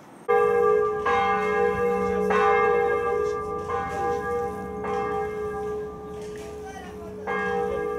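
Church bell in Évora Cathedral's bell tower tolling: about six strikes, each ringing on under the next, with a longer pause before the last.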